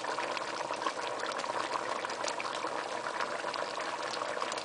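A pot of catfish curry boiling on the stove: a steady bubbling, with many small pops.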